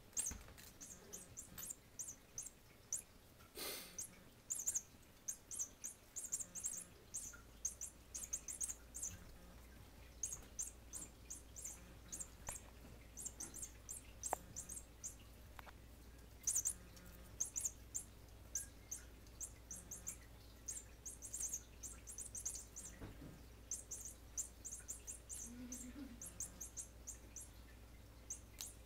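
Mouse squeaking, many short high-pitched squeaks in quick clusters, as cats bat it about and pin it. A brief knock about four seconds in.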